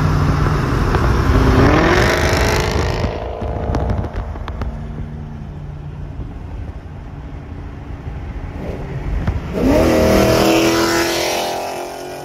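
Supercharged 6.2-litre HEMI V8 of a Dodge Charger Hellcat Redeye accelerating hard in the next lane, its engine note climbing about two seconds in and then fading as it pulls away, over steady highway road and wind noise. A second engine run-up climbs again near the end.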